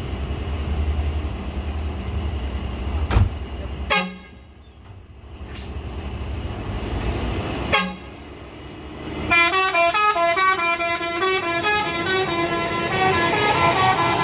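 Bus engine idling with a low rumble that falls away about four seconds in; from about nine seconds in, the bus's multi-tone telolet horn plays a fast melody of stepped, changing tones.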